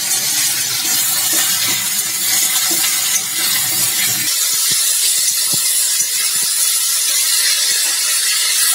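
Strips of bottle gourd sizzling in hot oil in a steel kadai, with a metal spatula scraping and knocking against the pan as they are stirred; a few sharp knocks come in the second half.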